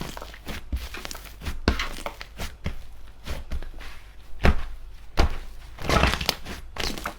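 Slime being squished and pressed, giving irregular crackling and popping with a few louder pops and a longer run of crackles about six seconds in.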